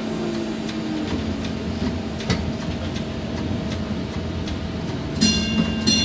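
Interior of a 1977–1980 UTDC CLRV streetcar under way: a steady low hum and an electric drive whine that falls in pitch in the first second. A single sharp click comes about two seconds in, and a high ringing squeal starts suddenly near the end.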